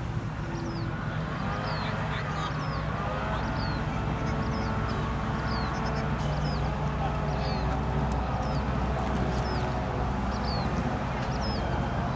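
Outdoor ambience of a youth soccer game: a steady low wind rumble on the microphone, distant players' voices calling across the field, and a short high chirp falling in pitch, repeating about every three-quarters of a second.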